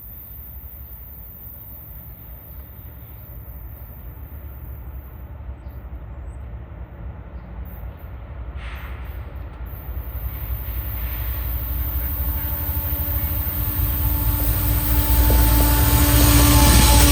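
Approaching train: a low rumble that grows steadily louder, with a steady engine tone joining about halfway through.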